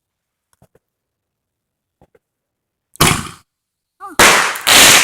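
A consumer firework going off: a sharp bang about three seconds in, then two louder bursts of noise, each about half a second long, near the end.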